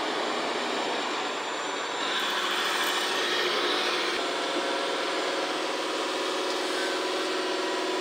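Steady whirring of 1/14-scale RC construction models running, electric drive and hydraulic pump, with a faint steady hum joining about halfway through.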